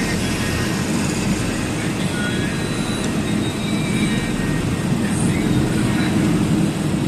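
Steady engine and road noise of a truck heard from inside the cab while driving at a constant speed.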